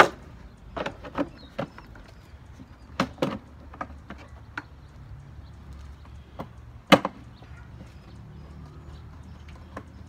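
Hard plastic clunks and clicks from the green hopper housing of a Harbor Freight electric chipper shredder being set back on its base and secured, after clearing a jam with the machine unplugged. The knocks come irregularly, a cluster in the first two seconds, a pair about three seconds in, and the loudest single knock about seven seconds in.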